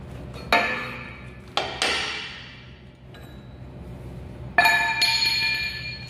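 Steel tools clanking against a steel plate and frame. There are four knocks: one about half a second in, two close together a little after a second and a half, and the loudest about four and a half seconds in. Each rings on with a clear metallic tone that fades over a second or so.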